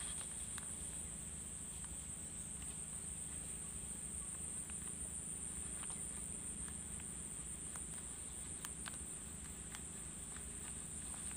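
Steady high-pitched insect chorus, one unbroken shrill band, with a few faint scattered clicks and a low rumble underneath.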